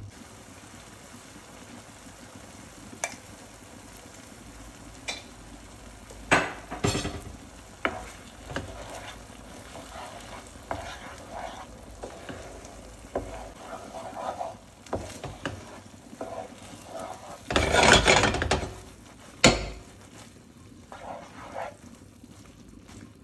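Wooden spoon stirring thick saffron risotto in a frying pan, scraping the pan bottom in short strokes with occasional clicks, while the nearly done rice sizzles lightly. About three-quarters of the way through comes a louder scrape and rattle lasting about a second.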